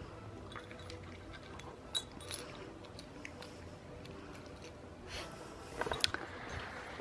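A dog eating its dog food: faint chewing with scattered small clicks, and a cluster of sharper clicks near the end.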